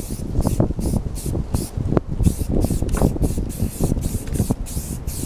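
Aerosol can of self-etching primer spraying in quick short hisses, about three a second, as it is swept back and forth over the part. Gusty wind buffets the microphone underneath.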